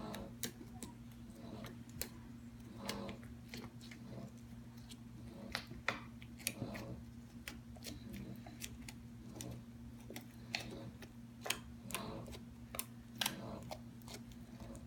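Slime being folded and squeezed by hand, making irregular small clicks and pops, several a second at times, over a steady low hum.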